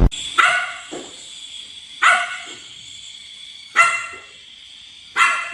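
A dog barking four times, single barks spaced about one and a half to two seconds apart.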